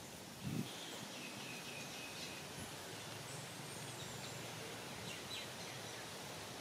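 Steady outdoor background hiss with faint, thin, high chirping calls, and one soft low thump about half a second in.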